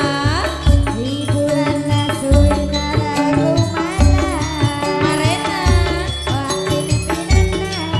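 Javanese gamelan ensemble playing a gending: ringing bronze metallophones and gongs over low drum strokes, with a sinden singing sliding, ornamented vocal lines on top.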